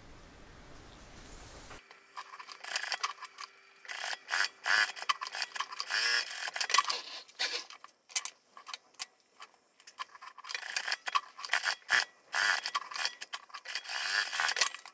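Industrial sewing machine in short stop-start runs of ticking and clicking, with thread and the folded fabric strap rustling as they are handled at the needle.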